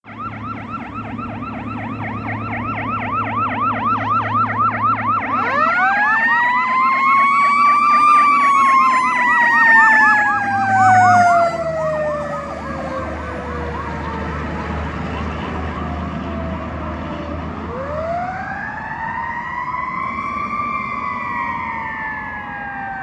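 Fire truck sirens on an emergency response. A fast electronic yelp warbles several times a second, then a wailing siren winds up, peaks and slowly falls away, and winds up and falls again near the end. A low diesel engine drone is loudest as the fire engine passes, just before the halfway point.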